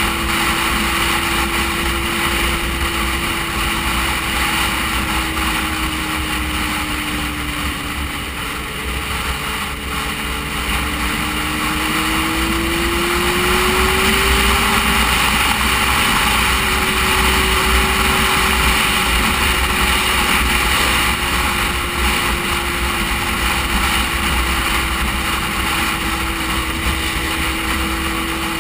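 Motorcycle engine running at cruising speed, with a steady rush of wind and road noise over the camera microphone. The engine note dips slightly about eight seconds in and climbs again a few seconds later as the throttle opens.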